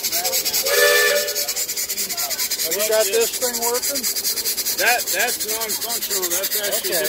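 Model horizontal steam engine running fast, its exhaust giving a rapid, even hissing chuff. Over it come several wavering squeaky tones that rise and fall.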